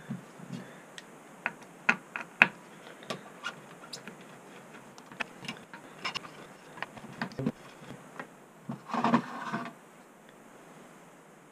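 Sharp clicks, taps and metal clatter from a Maxtor hard drive and its metal mounting bracket as screws are undone, with a longer scraping rattle about nine seconds in as the drive slides out of the bracket.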